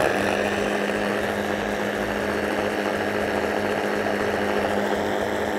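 Electric food chopper running steadily, its blade whirling a liquid salad dressing of honey, vinegar and cooking cream. The motor gives an even, unchanging hum.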